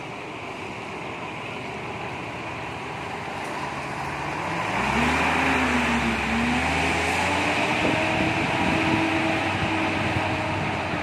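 Diesel engine of an express coach pulling away. About four and a half seconds in it grows louder, and its note rises, dips briefly and rises again, then holds steady as the coach moves off.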